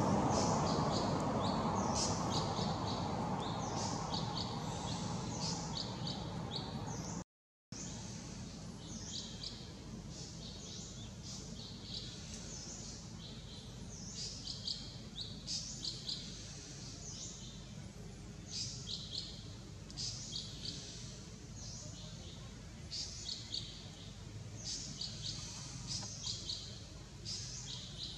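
Small birds chirping in quick clusters of short high notes, repeated throughout. Under them a broad background noise fades away over the first several seconds. The sound cuts out completely for a moment about seven seconds in.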